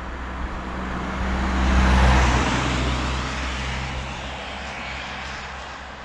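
A motor vehicle passing by: its engine noise swells to a peak about two seconds in, then fades as the engine's pitch drops.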